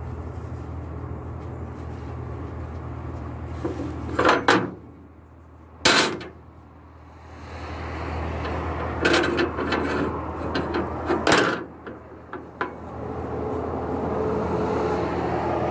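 Cargo tie-down straps being wound up by hand, with several sharp knocks and clatters of the strap hardware, loudest about 6 seconds in and again around 9 to 11 seconds, over a steady low hum.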